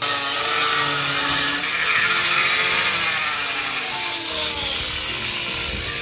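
Corded angle grinder running against wooden wall planks, sanding the wood surface; it starts abruptly and eases off slightly after about four seconds.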